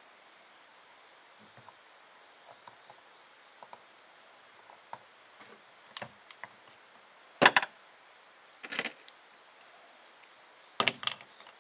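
A few short clicks and clatters as small metal parts of a Paslode 5300-series pneumatic nailer are handled while it is taken apart: a strong cluster about two thirds of the way in, one soon after, and a double click near the end. A steady high-pitched whine sits underneath throughout.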